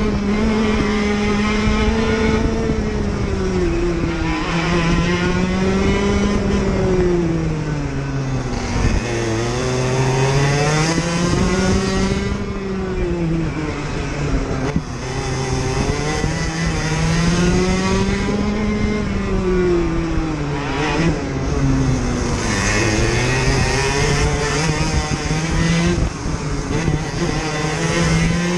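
IAME KA100 kart's 100cc single-cylinder two-stroke engine at racing speed. Its pitch climbs on each straight and drops off into each corner, about five times, over steady tyre and road noise.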